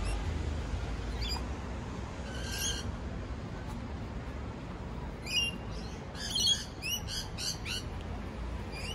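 Bird calls: a few separate sharp calls, then a quick run of about eight chirping notes six to seven seconds in, the loudest of them, over a steady low rumble.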